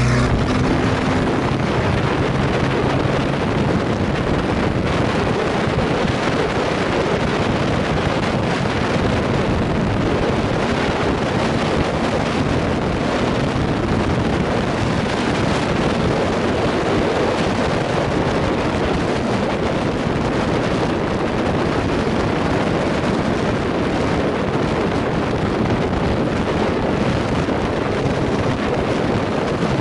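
Steady wind rush on the microphone, with road and tyre noise from a car driving along at speed, picked up from outside the car's body.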